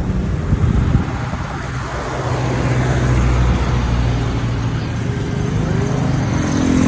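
A vehicle driving along a road, heard from on board: a steady low engine hum with tyre and road noise, which grows a little louder about two seconds in.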